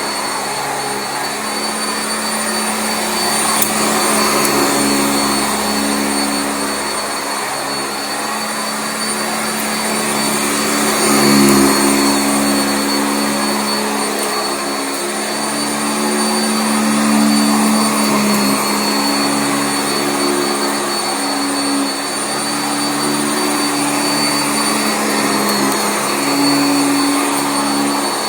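Sanitaire SC679J commercial upright vacuum running on carpet: a steady motor hum with a thin high-pitched whine, its loudness rising and falling slightly as it works.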